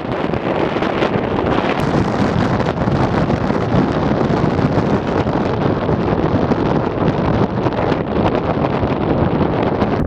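Strong wind blowing across the microphone in a steady, dense rush, mixed with the jet engine noise of an Airbus A320 airliner on the runway.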